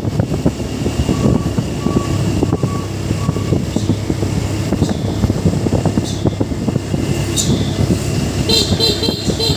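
Heavy truck engine running with a steady low rumble; about a second in come four short high beeps, and near the end a horn toots briefly.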